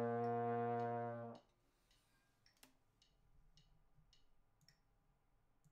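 Trombone holding one long, steady note that cuts off about a second and a half in. After it come faint, evenly spaced ticks, about two a second.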